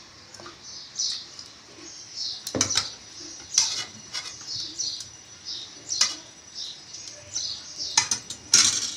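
A metal spoon knocks against a steel pot and bowl with several sharp clinks while soaked soya chunks are scooped out and squeezed. The loudest clinks come near the end. Through it, a bird chirps over and over, about two short falling chirps a second.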